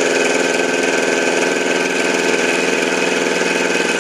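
7x10 mini lathe running steadily with a high whine while a milling cut of about ten thousandths is taken on the return pass.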